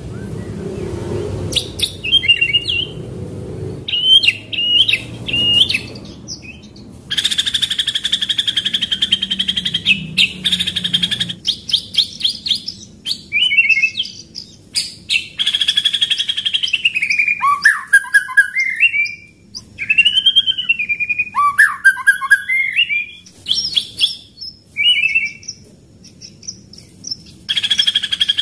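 A white-rumped shama singing loud, varied whistled phrases that glide up and down, with short pauses between them. About seven seconds in comes a long, rapid rolling trill that lasts about four seconds.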